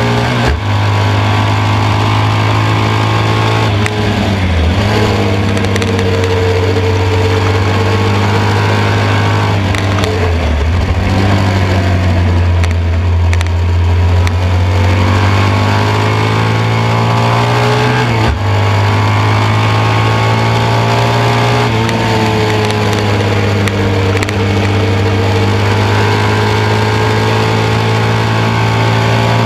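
1972 BMW R75/5's air-cooled boxer twin running hard at racing speed, heard from onboard with wind noise. Its pitch rises and falls through the corners, with brief breaks in the note about 4, 10 and 18 seconds in as the throttle and gears change.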